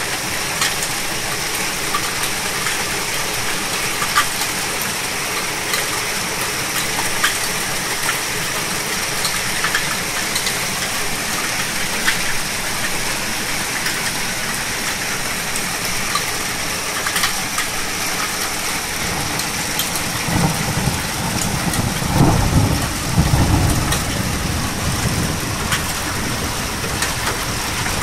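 Heavy downpour mixed with hail: a steady dense hiss with scattered sharp ticks of hailstones striking. A low rumble swells for a few seconds about three quarters of the way through.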